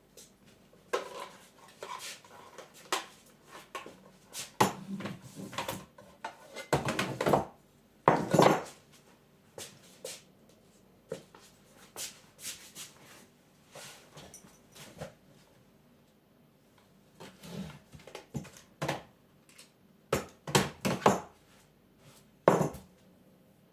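Irregular metallic clicks, clinks and knocks of shotgun parts and tools being handled on a bench, coming in clusters with short pauses between them.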